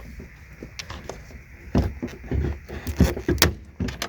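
Irregular clicks, knocks and rattles of plastic parts being handled as the brake light bulb module is worked out of a tail light assembly. The loudest knocks come about two seconds in and a second later.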